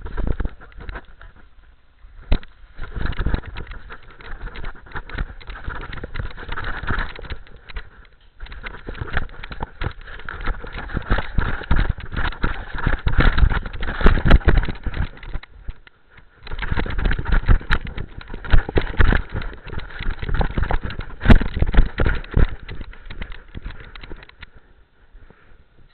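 Loud, irregular rubbing and knocking of a collar-mounted camera against a beagle's fur and collar as the dog moves, with short breaks and stopping a little before the end.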